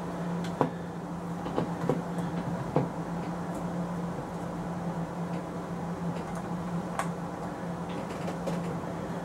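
Scattered light clicks and taps of a small screwdriver and metal scope rings being handled on a riflescope, sharpest in the first few seconds and once more about seven seconds in, over a steady low hum.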